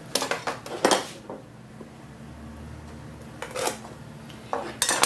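Hand tools clattering on a wooden workbench: a metal speed square and a folding rule picked up and set down, in a few short bursts of clicks and knocks, one just after the start, one about three and a half seconds in and one near the end.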